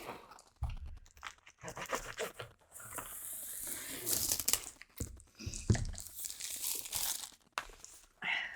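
Packaging of a diamond painting kit rustling, crinkling and tearing as it is unpacked by hand, with soft handling knocks. A longer hissy rustle comes about three seconds in.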